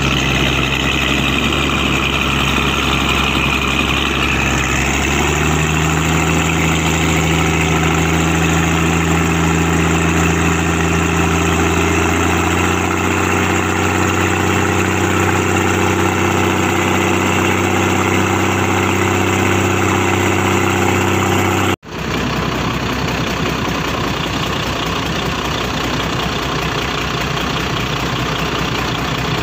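Mitsubishi 6D16 inline-six diesel engine running steadily. Its pitch steps up about five seconds in as the engine speed rises. The sound drops out abruptly for an instant about two-thirds of the way through, then carries on as a rougher, less tonal drone.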